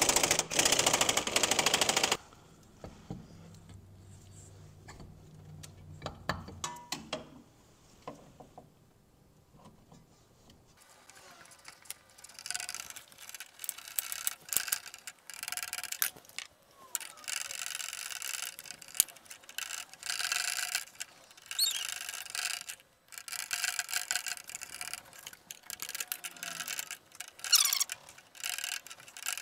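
A hand ratchet wrench clicking rapidly, worked in repeated spells of a few seconds each with short pauses between. It opens with a loud burst of noise lasting about two seconds.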